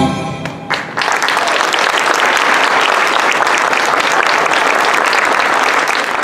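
Folk-dance music ends within the first second on a short final accent, and an audience then applauds steadily.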